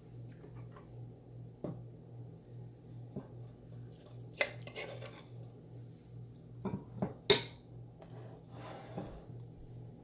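Spoon clinking and scraping against a bowl while stirring yogurt raita, in scattered knocks and short scrapes, with a sharp clink about seven seconds in, over a steady low hum.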